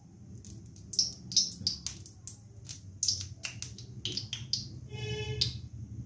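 Refined vegetable oil poured in a steady stream into an iron kadai, with many sharp, irregular crackling clicks as the oil hits the pan.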